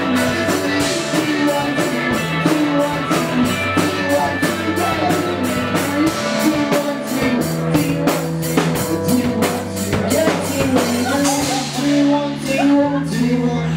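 Indie pop band playing live: electric guitars over a drum kit, with a steady cymbal beat of about four hits a second.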